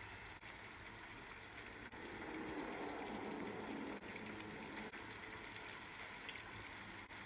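Steady hiss of falling rain over a low, even city hum.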